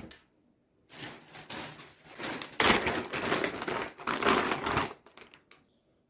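Crinkling, rustling handling noise in irregular bursts for about four seconds, loudest in the second half, after a brief thump at the start.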